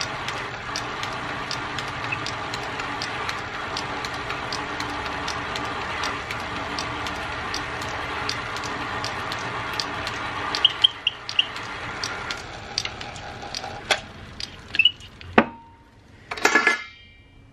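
Small metal lathe running with a steady motor hum and regular ticking, turning down a drill's Morse taper shank. About twelve seconds in the lathe winds down, followed by a few handling clicks and knocks and a short loud scrape near the end.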